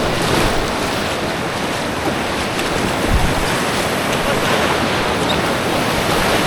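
Steady rush of creek whitewater around an inflatable kayak running rapids, with a low thump about three seconds in.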